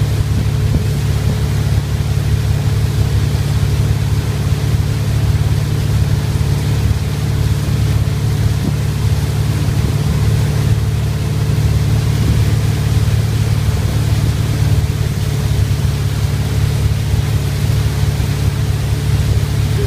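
Motorboat engine running at a steady towing speed, a constant low drone, under a steady rush of wind and churning wake water.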